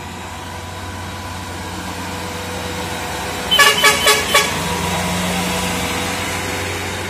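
Log-laden Isuzu light truck's diesel engine pulling up a steep climb, growing louder as it passes. Four quick horn toots about halfway through.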